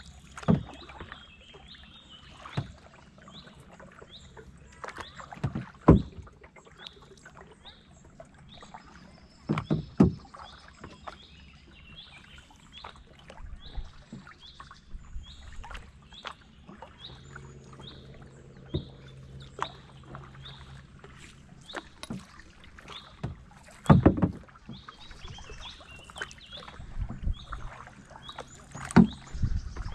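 Kayak paddling: the paddle blades strike and splash in the river water, with sharp loud strokes irregularly every few seconds. A faint high-pitched chirp repeats about twice a second throughout.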